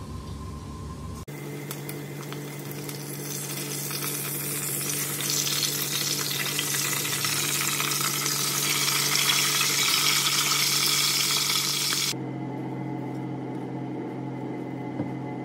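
Boiled pig ears and face frying in hot oil in a pot: a steady sizzle that grows louder. About twelve seconds in it cuts off abruptly to a low steady hum.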